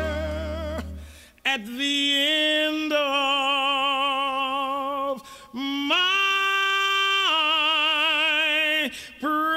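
Male voice singing two long held notes with wide vibrato, unaccompanied, each sliding up into its pitch. The previous accompanied note fades out in the first second.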